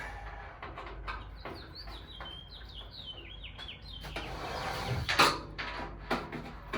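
Screws being tightened on a metal patio heater, with small clicks and knocks and a loud knock about five seconds in. About a second and a half in there is a run of short, high squeaks, each falling in pitch, lasting about two seconds.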